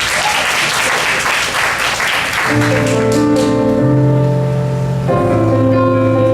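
Audience applause for about the first two and a half seconds, giving way to a slow piano intro of sustained chords and single notes.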